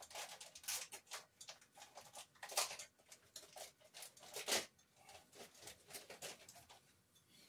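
Faint rustling and irregular small clicks of packaging being handled and opened to take out a toy missile, with a few louder crackles spread through.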